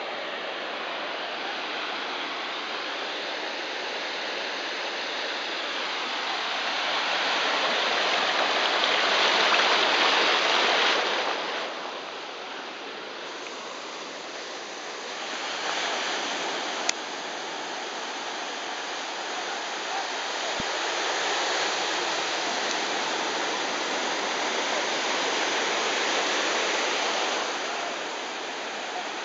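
Ocean surf on a sandy beach: waves breaking and their foamy wash rushing over the sand, a continuous rush that swells and eases in slow surges, loudest about a third of the way in.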